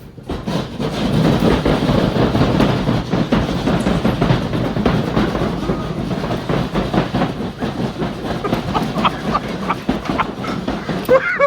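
Several hand drywall saws rasping rapidly through plasterboard at once, mixed with the clatter of speaker parts being handled, starting about half a second in. Short high-pitched vocal yelps come in near the end.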